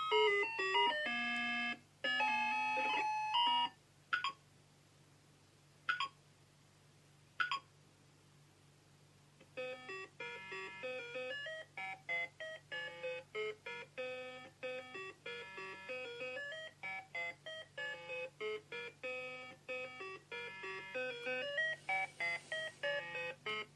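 VTech Petal Power toy laptop's electronic sounds: a short beeping jingle, then three single beeps a second or two apart, then a longer tune played in quick electronic beeps from about ten seconds in.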